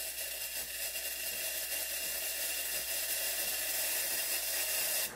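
Steam wand of a DeLonghi La Specialista Arte espresso machine hissing steadily with a thin whistle as it is primed to purge air from the wand; the hiss cuts off suddenly near the end.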